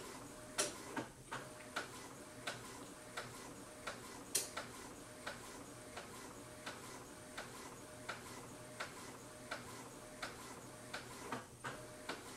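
Faint, steady ticking, about two to three ticks a second, many ticks carrying a short ringing note, over a low steady hum.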